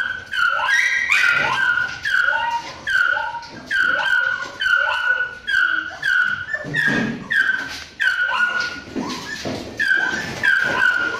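Dogs in kennel runs barking and yelping over and over, a steady run of short high-pitched yelps about two a second.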